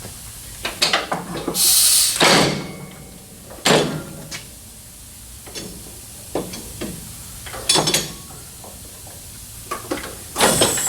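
Scattered sharp metal knocks and clanks from tools working on a car's front suspension, with a short burst of hiss about two seconds in.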